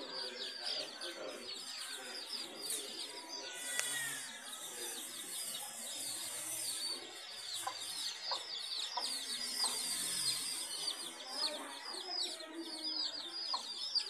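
A brood of young chicks peeping without pause: many high, short, falling cheeps overlapping several times a second. A mother hen clucks softly now and then.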